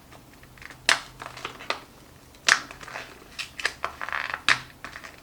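Glued paper packaging being carefully pried open: three loud sharp cracks as the glued seam gives, with small crackles between them and a brief rasp of peeling paper shortly after four seconds in.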